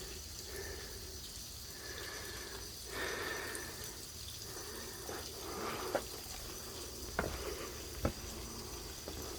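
Faint trickle and drip of a waterfall that the drought has reduced to a trickle, running over rock, with three sharp ticks in the second half.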